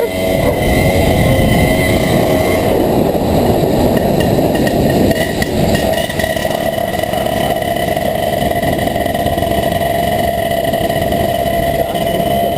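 Moped (mobilete) engine running under way, a steady drone that is rougher for the first half and settles to a more even pitch about six seconds in.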